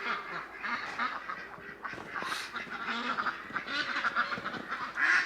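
Ducks quacking and chattering. Near the end one duck breaks into a loud run of rapid quacks, about three or four a second, that sounds like laughing.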